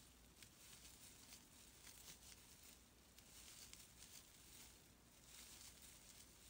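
Near silence, with faint soft rustling and small ticks from sparkly acrylic scrubber yarn being worked with a crochet hook.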